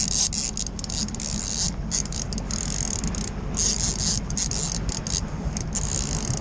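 Fishing reel drag buzzing in bursts with short breaks as a hooked sturgeon pulls line off the reel, over the steady low drone of the jet boat's engine.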